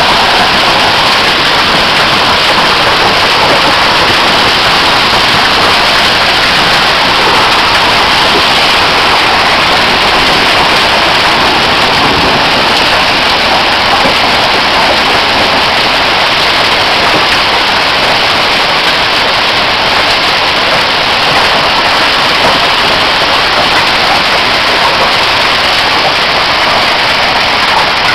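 Hailstorm: large hailstones and heavy rain pelting the ground and the porch roof in a loud, steady, dense patter.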